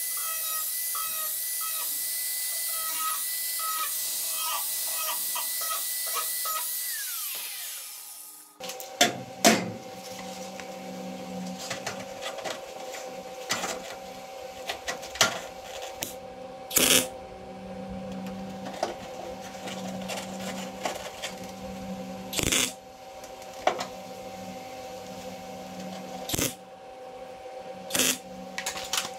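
Angle grinder running steadily with a high whine, then spinning down about seven seconds in. After a short pause, a MIG welder with a steady hum lays a series of short tack welds, each a brief crackle, about seven over the remaining twenty seconds, tacking sheet-steel relief cuts in a car's wheelhouse.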